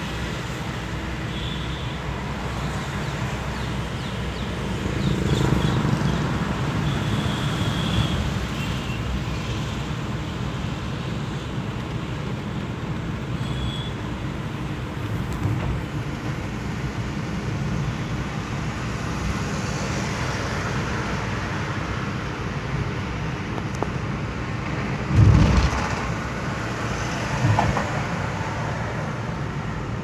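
Steady road and engine rumble heard inside a moving car's cabin, swelling about five seconds in. A short, loud low thump comes about 25 seconds in, with a smaller one a couple of seconds later.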